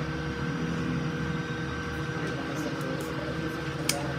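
Steady mechanical hum with several constant tones underneath, and a single sharp click near the end.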